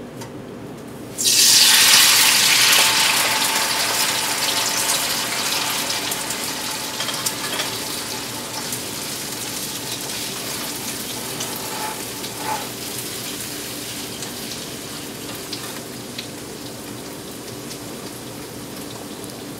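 Vegetables tipped into a hot frying pan, starting to sizzle loudly about a second in. The sizzle slowly dies down as they are stirred with a wooden spatula, with a few light clicks from the spatula.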